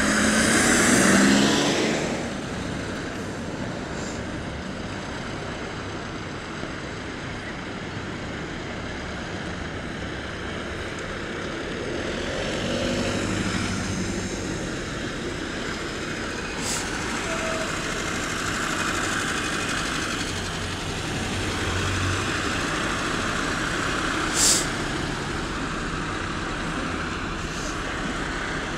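Fire engines' diesel engines running as the appliances move off, louder in the first couple of seconds. A short, sharp air-brake hiss comes about three-quarters of the way through.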